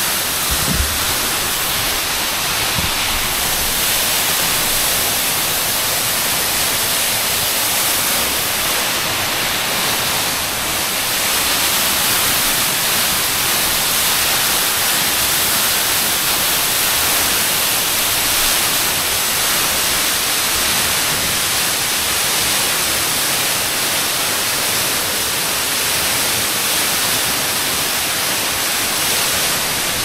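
Tall waterfall pouring onto rocks at its base: a steady, even rush of falling water.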